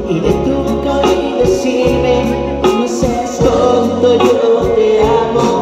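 Live band music: a male lead singer sings into a microphone over bass guitar and drums, holding a long wavering note near the end.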